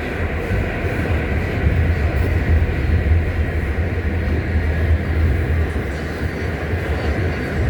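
R68 subway train running at steady speed on the track, a loud, even low rumble of wheels and traction motors with a faint steady whine above it.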